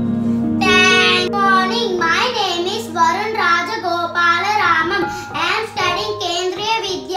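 A child singing a wavering melody, coming in under a second in, over steady held backing tones.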